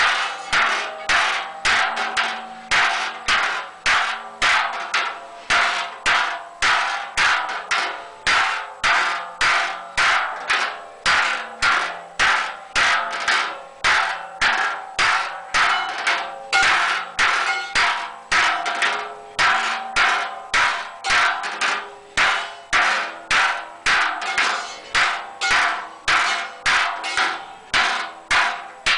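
Hand hammer beating the wall of a large sheet-metal cauldron in a steady rhythm, about two blows a second. Each blow rings briefly on the metal as the cauldron is hand-formed.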